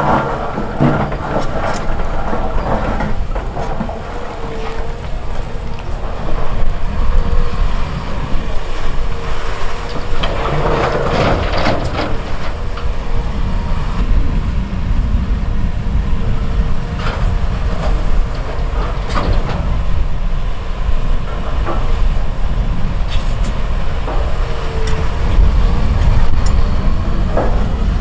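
Cat 340F excavator's diesel engine running steadily under working load, with scattered knocks and thuds of large rocks scraping in the steel bucket and dropping into a dump truck's steel bed, several of them in the second half.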